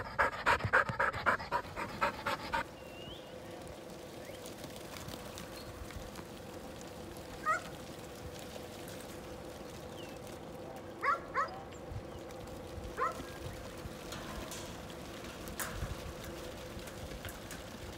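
A working dog panting fast for the first couple of seconds, then a faint steady hum with a few short, rising chirping calls.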